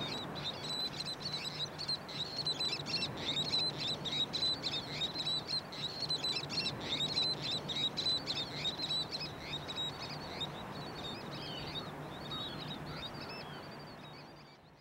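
Many birds calling at once in a dense chatter of short, high calls over a steady background hiss and a low hum. The sound fades out near the end.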